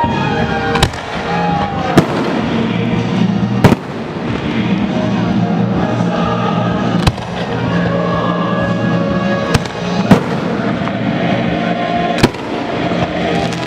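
Fireworks going off: about seven sharp bangs spaced irregularly a second or more apart, over music playing throughout.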